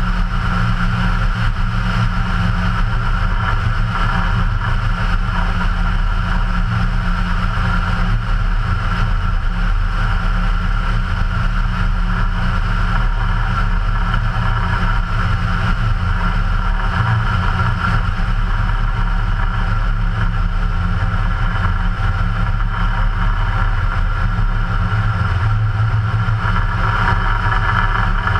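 Ikarus C42 ultralight's 100 hp Rotax 912 four-cylinder engine and propeller running steadily at cruise power in flight, heard from outside the cabin with airflow on the microphone.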